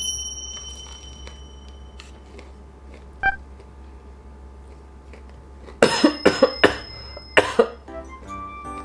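A man coughing in a short fit of about five coughs, about six seconds in, after choking on a mouthful of crumbly chocolate doughnut.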